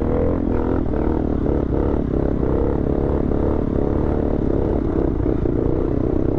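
Honda Grom's 125 cc single-cylinder four-stroke engine running steadily under way.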